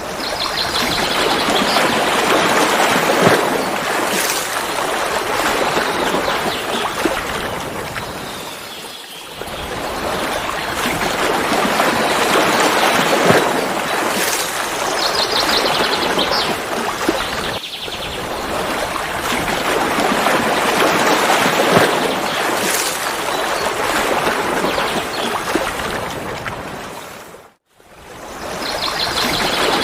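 Mountain waterfall with water rushing and splashing steadily. The sound dips twice and cuts out briefly near the end before picking up again.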